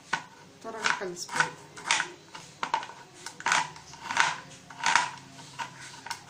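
Knife chopping a block of jaggery on a cutting board: a sharp knock with each cut, about ten cuts at an uneven pace of one or two a second.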